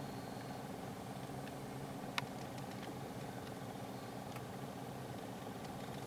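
Vehicle engine idling with a low, steady hum, heard from inside the cab. A single faint click about two seconds in.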